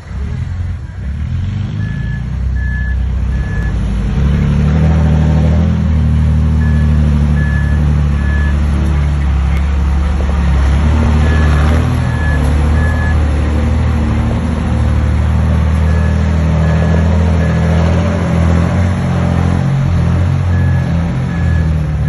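Heavy diesel earthmoving machinery running hard, with its reversing alarm beeping in sets of three, a set about every four to five seconds. The engine note grows heavier about four seconds in.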